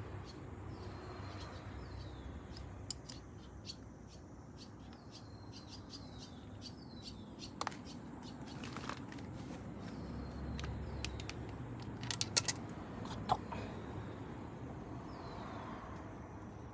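Scattered light clicks and taps of hand tools and small engine parts being handled, with a quick cluster of clicks about twelve seconds in. Birds chirp in the background.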